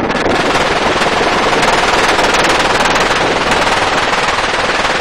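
Door-mounted machine gun firing sustained full-auto from a helicopter in flight, a steady unbroken rattle of rapid shots over the helicopter's wind and rotor noise.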